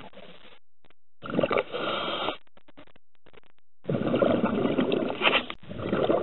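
Scuba diver breathing through a regulator underwater, heard as two rushing, bubbling bursts: a shorter one and a longer one, with faint scattered clicks in the quiet between.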